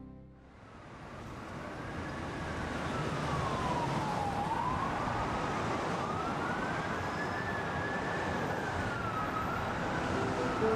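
Emergency-vehicle siren wailing slowly up and down, faint over a steady hiss of city traffic that fades in over the first couple of seconds. Soft music notes come in at the very end.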